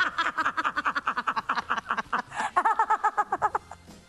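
Women laughing: quick repeated ha-ha pulses that die away near the end.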